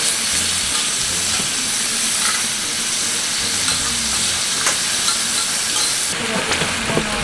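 Thin-sliced pork sizzling steadily on a 6 mm thick bare iron griddle plate, stirred with metal tongs that tap the plate lightly a few times.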